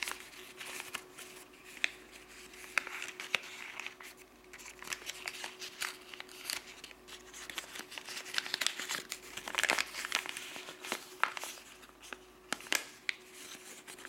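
White printer paper being creased and folded by hand: irregular crinkling and rustling with sharp little crackles, busiest about ten seconds in. A faint steady hum runs underneath.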